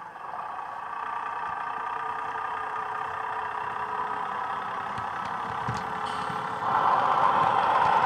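A Dapol Class 121 single-car diesel railcar model's DCC sound decoder plays a diesel engine running under power through its onboard speaker. The sound steps up sharply in loudness near the end.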